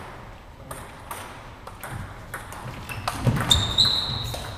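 Celluloid-type table tennis ball hit back and forth in a doubles rally: a quick run of sharp clicks of ball on bats and table. A steady high squeak comes in about three and a half seconds in.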